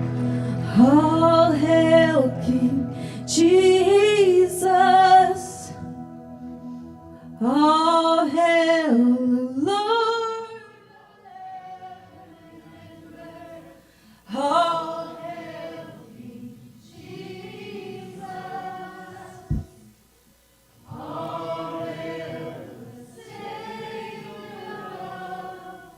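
Worship singing: a woman's voice leads sung phrases with vibrato, a group of voices singing along, the phrases separated by short pauses and softer in the second half. A single sharp knock about twenty seconds in.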